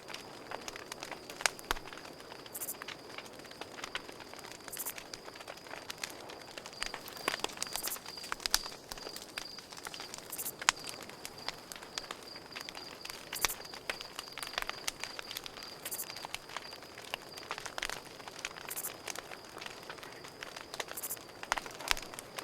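Campfire crackling, with frequent sharp pops and snaps at irregular intervals, over a steady high pulsing trill of crickets.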